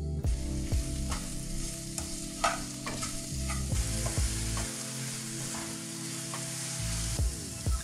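Diced apples sizzling in a frying pan while a wooden spatula stirs them, knocking and scraping against the pan at irregular moments over a steady frying hiss.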